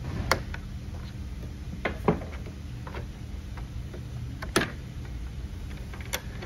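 A few sharp clicks and snaps as a flathead screwdriver pries a casement window's operator arm off its sash bracket and face mount, the loudest a little past halfway, over a steady low hum.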